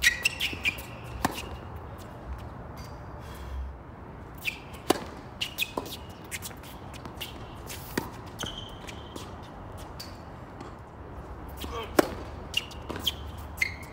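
Tennis ball struck by rackets and bouncing on a hard court, single sharp pops a few seconds apart, with short sneaker squeaks on the court surface between shots. The loudest pop, near the end, is a serve.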